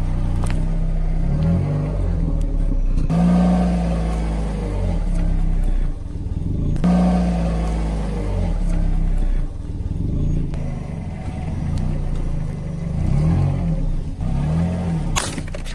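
Car engine running, its revs rising and falling a few times as it rolls, with a sharp crack near the end as something is crushed under a wheel.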